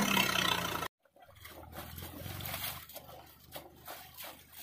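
Swaraj 744 FE tractor's three-cylinder diesel engine running hard under load, stuck in mud, then cut off abruptly about a second in. After that, soft squelching and splatting of wet mud being scooped by hand around the bogged rear wheel, over a faint low hum.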